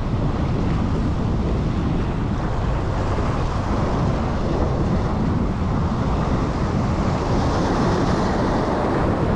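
Wind rumbling on the microphone over waves washing against a rock jetty; a wave breaks and splashes on the rocks near the end.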